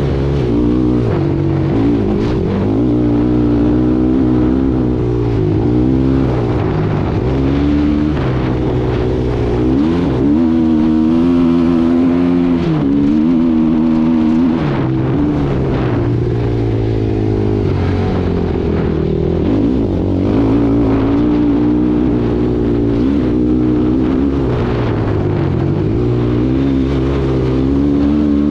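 Suzuki LT-R450 quad's single-cylinder four-stroke engine under way, its revs climbing and dropping again and again as the throttle is opened and shut.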